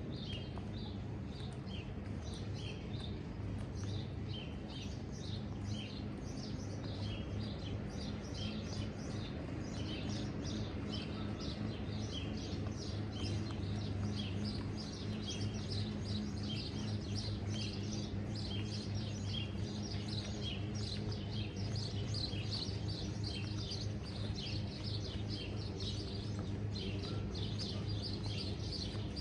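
Many small birds chirping rapidly and continuously, a dense chorus of short high calls, over a steady low hum and outdoor background noise.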